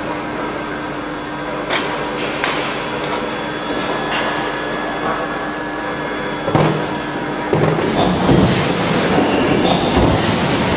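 Forging-plant machinery running with a steady hum, broken by sharp metal clanks and bangs, a couple in the first few seconds and more often and louder in the second half.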